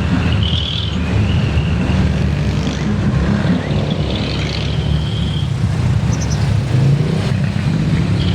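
A jeepney's engine and road rumble heard while riding, with a thin high-pitched whine that comes and goes: it sounds through the first two seconds and again about four seconds in.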